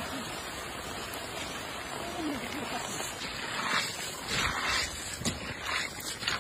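Makhana (fox nut) seeds poured and swept out of a cane basket onto a heap, giving a gritty rushing rattle in several bursts from about halfway through, over a steady outdoor hiss.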